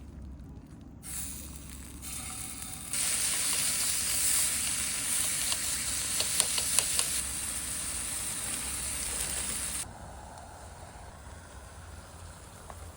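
Food sizzling in a frying pan, a loud steady hiss that starts abruptly about three seconds in and cuts off near the end, with a few sharp pops partway through.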